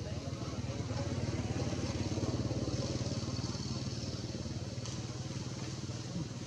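A motor vehicle engine running steadily, its low rapid pulsing rising a little toward the middle and then easing off.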